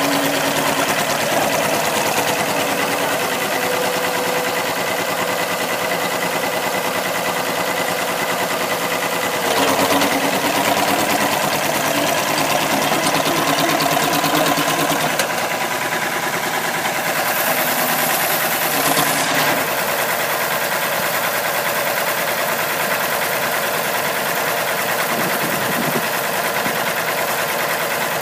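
A 1955 Oliver OC-12 crawler tractor running steadily as it drives on its steel tracks, with a rapid mechanical clatter. It swells briefly louder about ten seconds in and again near twenty seconds.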